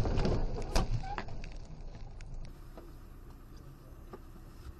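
Low-level dashcam recording noise from inside a car. A fading rumble with a few sharp clicks gives way, about two and a half seconds in, to a faint steady hiss.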